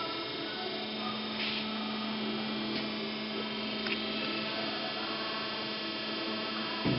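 Steady electric hum of a Meba Eco-line 325 mm bandsaw running, with a few faint clicks and a low thump near the end.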